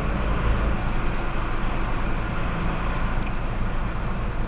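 Lorry engine and cab noise heard from inside the cab while driving: a steady low rumble with road noise.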